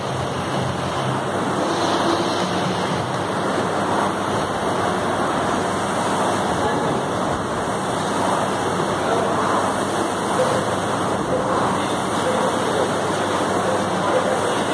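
Air-resistance rowing machine's fan flywheel running steadily as an athlete rows, a continuous whooshing rush.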